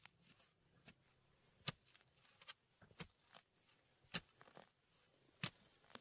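A hand digging tool striking into soil and roots around a small shrub being dug up: several sharp strokes, roughly a second apart.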